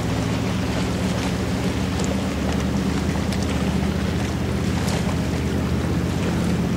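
Boat engine running with a steady low drone, mixed with wind on the microphone.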